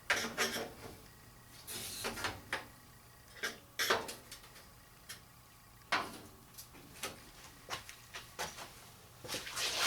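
A long metal hinge being slid and handled against a welded steel door brace: scattered clanks, clicks and short scrapes, a few loose groups of them spread across the few seconds.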